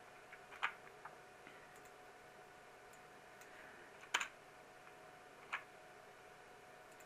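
A few isolated sharp clicks of a computer keyboard and mouse, the loudest about four seconds in, over a faint steady background hum. The clicks come from copying code and pasting it into another program.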